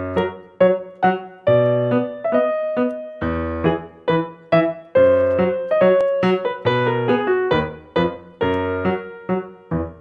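Background music: a piano-like keyboard tune of short struck notes and chords, each dying away, a few notes a second.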